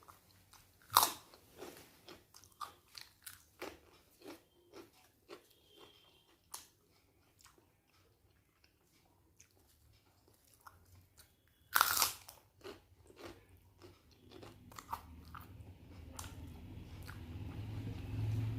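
Crisp papad being bitten and chewed: two loud crunching bites, about a second in and near twelve seconds, each followed by a run of smaller chewing crunches. A low hum rises over the last few seconds.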